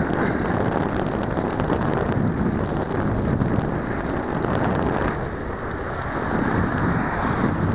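Wind buffeting the microphone over the rumble of a vehicle driving along the road.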